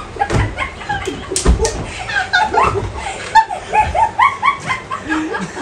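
A woman shrieking and laughing in short high squeals as she is hit with a pillow, with a few dull thumps from the pillow blows.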